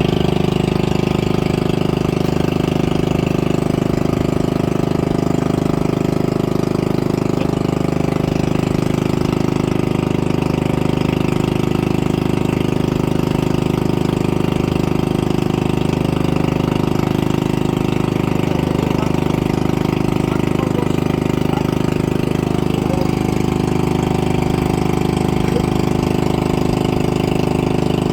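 Boat engine running steadily at an even speed, loud and unchanging.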